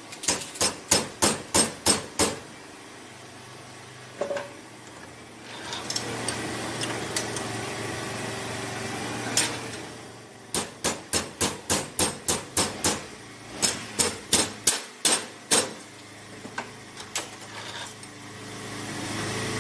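Hand hammer striking metal in three quick runs of blows, about four a second, with a few single strikes between: a motorcycle part bent in a crash being beaten back into shape.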